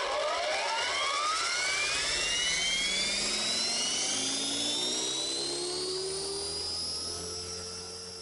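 Radio-controlled Align helicopter's motor and rotor head spooling up. A whine rises steeply in pitch over the first few seconds, then levels off into a steady high whine with a lower hum under it as the rotor reaches speed.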